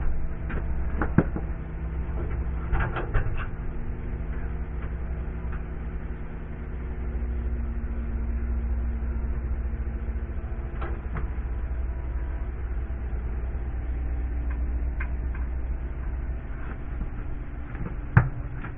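A few sharp clicks and knocks of hands working on electrical fittings, over a steady low mechanical hum; the loudest knock comes near the end.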